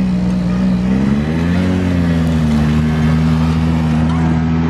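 Skid steer's diesel engine running, revving up about a second in, then settling and holding a steady speed.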